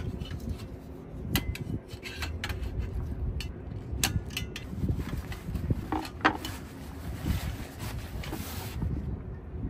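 Metal clicks and clinks as a portable gas burner is fitted into a stainless steel table frame, several sharp knocks over the first six seconds. Then a fabric storage bag rustles as it is pulled over it, with a low rumble of wind on the microphone throughout.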